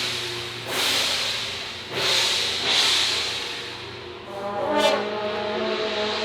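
Live traditional troupe music: bright crashes that ring and fade about once a second, then a brassy wind instrument holding a note from about four seconds in.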